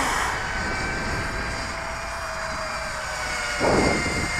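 Dquad Obsession FPV quadcopter in flight, its motors and propellers giving a steady high whine whose pitch sags slightly. A brief louder rush of noise comes about three and a half seconds in.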